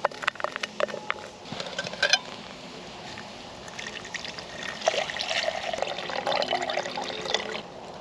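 A few light clicks and knocks of handling, then water being poured for chai tea onto ginger and loose tea mix. The pour runs steadily for about four seconds from midway and stops shortly before the end.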